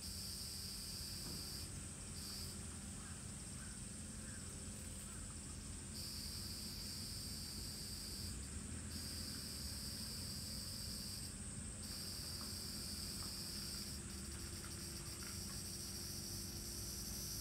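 Summer cicadas keep up a steady high-pitched chorus, while a second, lower call breaks off and starts again every few seconds.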